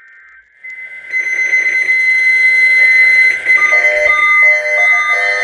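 Weather alert radios going off on a NOAA Weather Radio test alert. Faint buzzing SAME data tones give way, under a second in, to a loud, steady high-pitched alarm tone. About three seconds in, a repeating pattern of short electronic beeps at lower pitches joins it.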